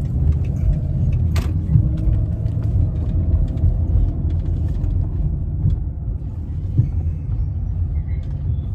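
Steady low rumble of a car driving, heard from inside the car, with a single sharp click about a second and a half in.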